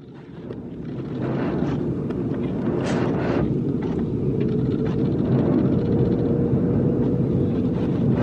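Steady low roar inside the cabin of an Airbus A330-900neo airliner in flight: engine and airflow noise, fading in over the first second. A faint steady hum joins about halfway through.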